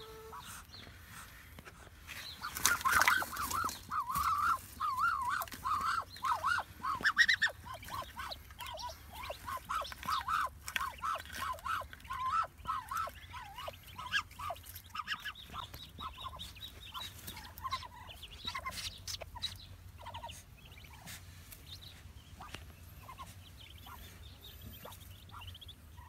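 A brood of newly hatched Muscovy ducklings peeping, many short high calls in quick succession, busiest for most of the stretch and thinning out near the end. A brief rustling noise comes about three seconds in.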